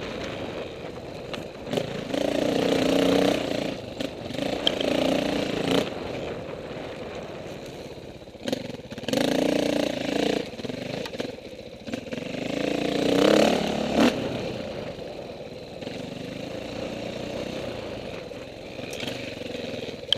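KTM 450 four-stroke dirt bike engine being ridden, revving up in four surges and easing off between them, with scattered knocks and clatter from the bike.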